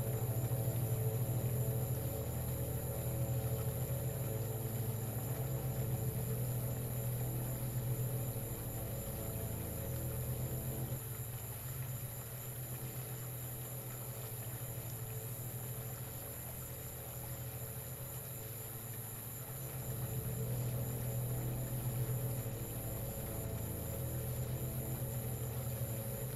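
A steady low electrical hum with a constant high hiss over it, swelling and fading slowly in loudness, with a cluster of mid tones that thins out about halfway through.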